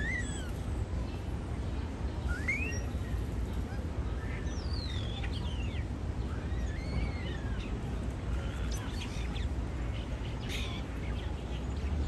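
European starling singing: a string of thin whistles that slide up, down and over in pitch, followed by a run of short clicks and rattles.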